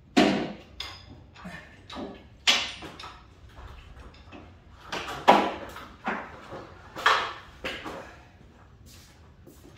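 Irregular knocks and clunks from a stepladder as someone climbs down it, about a dozen sharp hits at uneven intervals, the loudest near the start and about halfway through.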